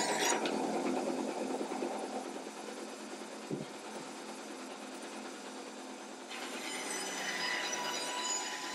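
Band saw cutting a thick oak tabletop along a curved line. The cut eases about a second in, leaving the saw running more quietly, and the blade bites into the wood again about six seconds in.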